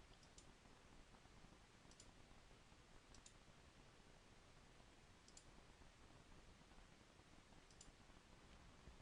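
Near silence with about five faint computer mouse clicks spread out, some in quick pairs.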